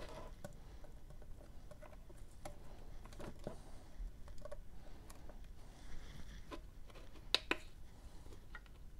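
Faint handling noise of gloved hands placing a tweezer test probe on a power-supply circuit board: scattered light clicks and taps, with two sharper clicks close together near the end.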